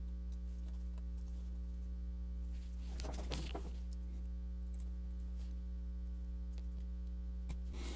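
Steady electrical mains hum, a low buzz with a stack of even overtones, under a few faint small clicks and a short soft rustle about three seconds in.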